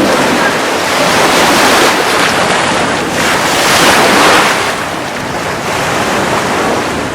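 Atlantic surf washing onto the beach, with wind buffeting the microphone. The wash swells loudest about four seconds in, then eases.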